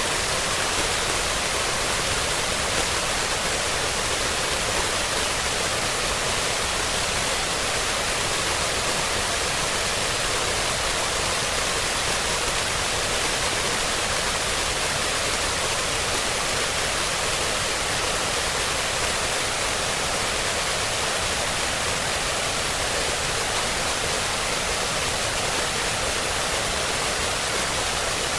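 Harsh noise music: a steady, unchanging wall of hiss, strongest in the upper range and thinner in the low-mids, with no beat, pitch or change.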